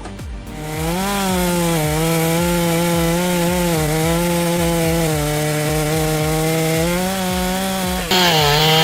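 Chainsaw running at high revs while cutting into a tree trunk, its pitch sagging and recovering slightly as the chain loads in the cut. A louder, harsher hiss joins near the end.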